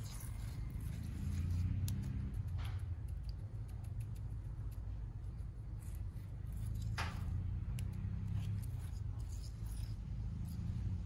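Small trowel scraping and smoothing wet cement in a small pot mould, with faint ticks and two short, louder scrapes about two and a half and seven seconds in, over a steady low rumble.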